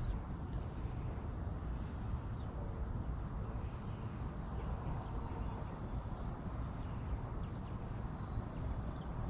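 Outdoor ambience: a steady low rumble of wind on the microphone, with faint scattered bird chirps.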